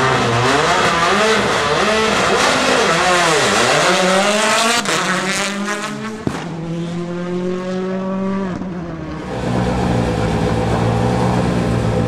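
2008 World Rally Car engines, turbocharged four-cylinders. First an engine revs, its pitch swinging up and down; then a rally car passes at speed, its note sweeping through gear changes, with two sharp cracks about five and six seconds in. From about nine seconds in, a rally car idles steadily.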